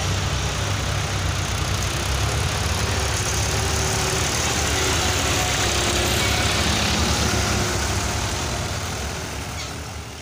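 Diesel farm tractor engines running steadily, fading out near the end.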